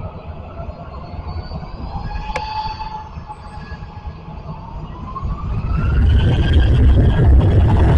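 Jet engines of a Jet2holidays Boeing 737 on the runway: a thin whine rises in pitch about five seconds in as the engines spool up to takeoff power, and a low rumble swells loud beneath it. A single short click comes about two seconds in.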